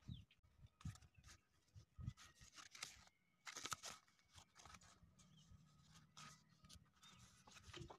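Faint crinkling and rustling of thin cardboard being folded and rolled by hand, in scattered short strokes, the loudest a crackle about three and a half seconds in.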